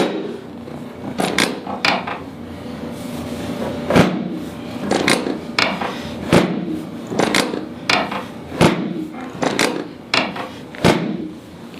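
Chiropractic drop table sections snapping down under the chiropractor's thrusts during an adjustment: a series of sharp clacks and knocks, some with a low thud, coming singly or in quick pairs at uneven spacing.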